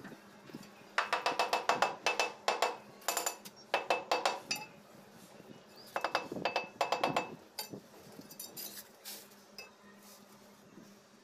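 Ceramic wall tiles being tapped to bed them into fresh mortar: rapid runs of light clinking taps, several a second, in two bursts about a second in and around six seconds in, with a few fainter taps later.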